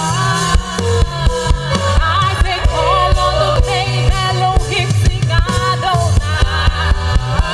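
Live gospel worship music: voices singing a wavering melody over a band with a steady beat and bass line.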